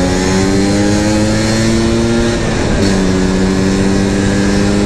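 Classic Vespa scooter's tuned two-stroke engine with a crankcase-mounted ('intake tanam') intake, pulling under acceleration. Its pitch climbs steadily, drops briefly about two and a half seconds in, then climbs again.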